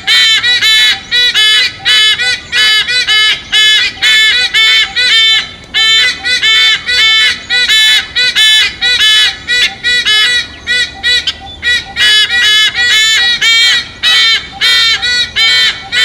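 White-bellied sea eagle calling: loud honking 'ark' notes repeated about three to four a second in long runs with brief pauses.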